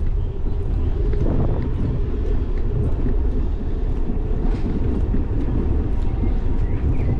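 Steady low rumble of wind on the microphone and bicycle tyres rolling over brick paving.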